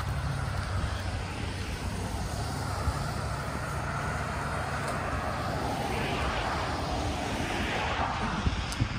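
A steady low engine drone under a rushing noise that swells in the second half and eases near the end, as of a motor passing by.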